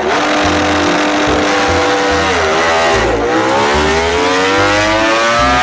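A Ducati MotoGP racing motorcycle's engine running high, dropping in pitch a little past halfway, then revving up in one steady rising climb as the bike pulls away.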